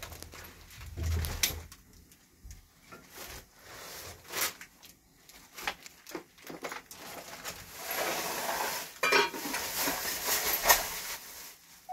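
Scattered metallic clinks and knocks from metal parts being handled, with a busier stretch of clatter and rustling from about eight seconds in.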